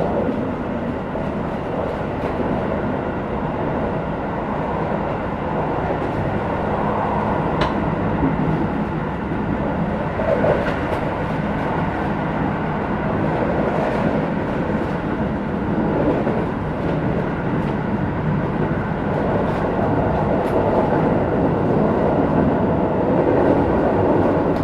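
Running noise inside a Keisei 3050 series electric train motor car (Toyo IGBT inverter drive) travelling between stations: a steady rumble of wheels on rail under a low motor hum, with a few short rail-joint clicks.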